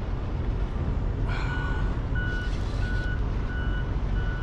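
Wind and water rumble, with electronic beeping starting about a second in: a steady high tone repeating a little under twice a second.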